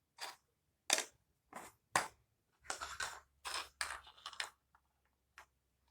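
Plastic marble-run parts being handled and fitted together: a string of sharp clicks and short scraping, rustling noises, about a dozen in all, with a quick knock about a second in and another about two seconds in.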